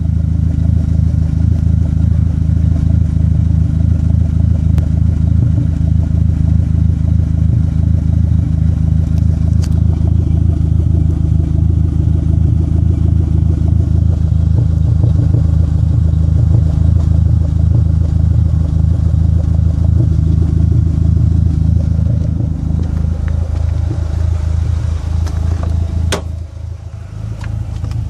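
Dodge Neon SRT-4's turbocharged 2.4-litre four-cylinder engine running with a cylinder 4 misfire (code P0304). New plugs, wires, injectors and coil pack have not cured it, and the owner thinks a leaking intake manifold gasket is the likely cause. Near the end the sound changes and drops a little, with a sharp click.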